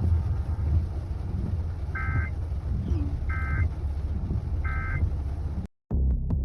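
Steady low rumble of a car driving, with three short electronic beeps about a second and a half apart. Near the end the sound cuts off abruptly and a pulsing beat begins.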